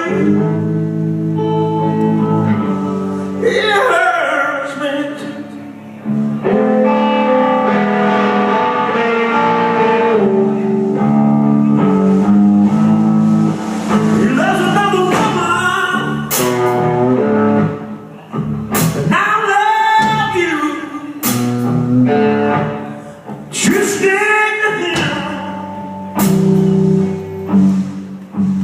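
Male voice singing a slow blues with guitar accompaniment, long held and sliding notes.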